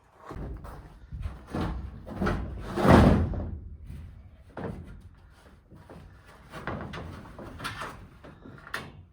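Sheet-metal (tin) roofing panels being pried loose and handled on an old shed, giving a run of irregular rattles, scrapes and bangs, the loudest about three seconds in.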